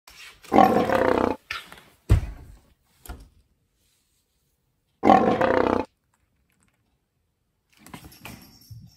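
Two loud, drawn-out cries about four and a half seconds apart, each just under a second long, with a dull thump a second after the first and faint light pattering near the end.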